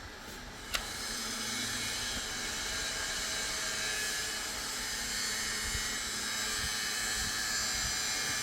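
A click, then a small motor starts a steady whirring hiss and keeps running.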